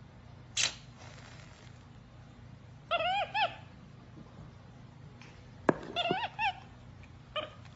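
Capuchin monkey giving short, high, arching chirps in two quick groups of three or four notes, about three seconds in and again about six seconds in, with a brief hiss near the start and a sharp click just before the second group.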